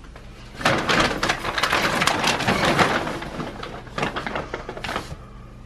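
Dry dog kibble being poured into a dog bowl, a dense rattle of many small pieces for about two seconds, then a few lighter rattles as the last pieces settle.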